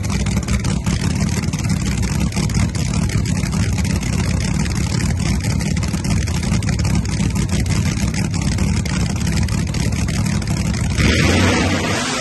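Pro Nitrous drag car's engine running with a loud, steady low rumble while the car sits staged at the starting line. About eleven seconds in, the sound changes suddenly to a louder, brighter noise.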